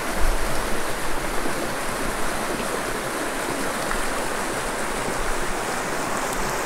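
Small mountain creek running over rocks: a steady rushing hiss of moving water.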